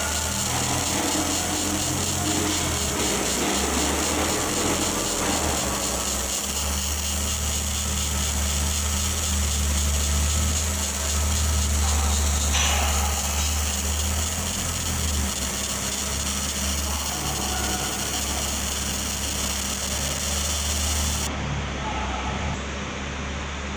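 Fiber laser marking machine running as it engraves a photo into brass: a steady mechanical buzz with a low hum beneath. The high hiss drops away near the end as the marking stops.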